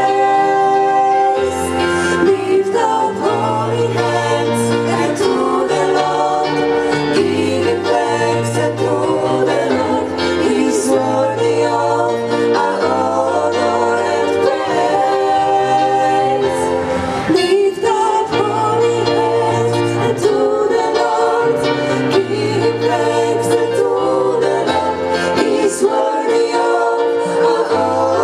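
Live female vocal quartet singing a song in close harmony through a PA, over instrumental backing with a low bass line.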